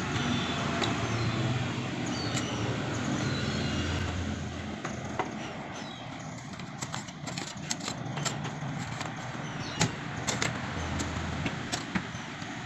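Steady low background rumble with scattered light clicks and knocks, more frequent in the second half.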